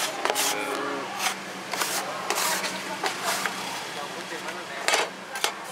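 Hands rubbing and patting flour-dusted wheat dough on a board in short, irregular strokes, with the strongest pair near the end. A steady low hum runs underneath.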